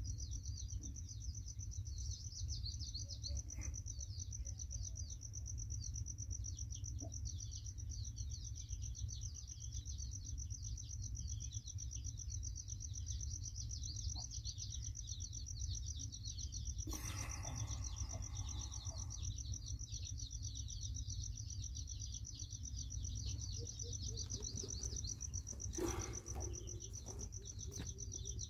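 Many small birds chirping in quick, dense calls, over a steady high insect trill. A brief rustle a little past halfway through.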